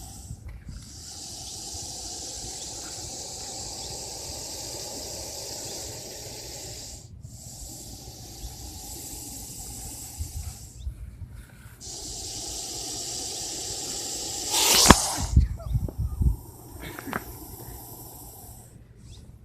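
Russell's viper hissing loudly in long, even hisses of several seconds each, broken by short pauses for breath. Its hiss is a defensive warning. About fifteen seconds in, a loud thumping clatter cuts across it.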